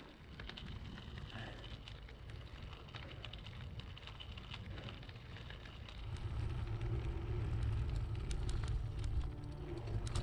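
Wind buffeting the microphone over the crunching and crackling of mountain-bike tyres rolling on a gravel and dirt track. The rumble grows louder about six seconds in.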